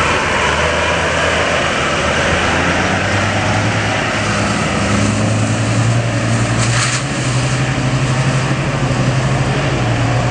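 A 4x4's engine pulls under load as the vehicle drives up a deep muddy track, steady and loud. The revs rise a little about halfway through, and there is a brief hiss about seven seconds in.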